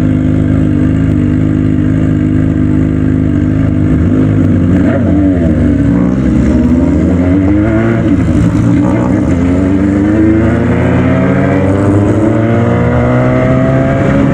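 Engine running steadily, its pitch dipping about five seconds in and then rising smoothly over the last few seconds as it speeds up.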